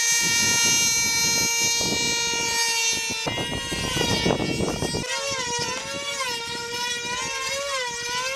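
High-pitched whine of control-line combat models' small 2.5 cc two-stroke engines at full speed, held steady at first. After a short stretch of rushing noise around the middle, the pitch swings up and down about once a second as the models circle on their lines.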